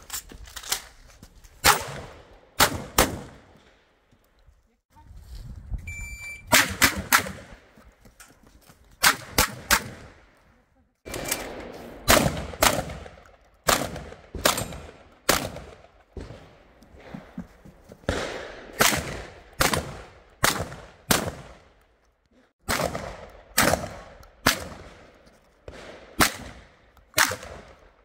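Strings of 12-gauge shotgun shots fired in quick succession, often two or three a second, with short pauses between strings. About six seconds in comes a short high electronic beep, the shot timer's start signal.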